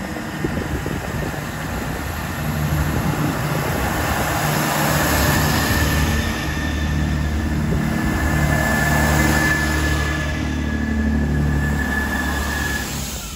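GWR Class 165 diesel multiple unit running in alongside the platform, its diesel engines droning steadily and growing louder from a couple of seconds in, with a thin high squeal over roughly the second half. The sound cuts off abruptly at the end.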